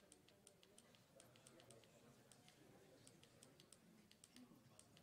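Faint, quick tapping of laptop keys, about four clicks a second at an uneven pace, as the slideshow is skipped forward to get back to the right slide after the laptop crashed.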